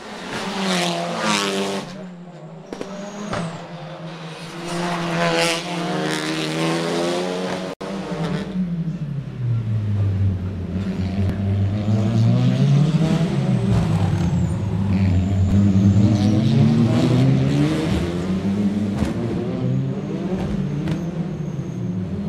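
Racing touring cars pass at speed, twice in the first half, each engine's pitch dropping as it goes by. After an abrupt break about eight seconds in, several engines run together, louder and steady, their pitch rising and falling as they rev up and down through the gears.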